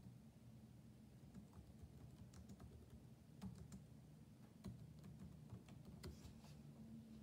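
Faint, irregular clicks of a computer keyboard being typed on, over a low steady room hum.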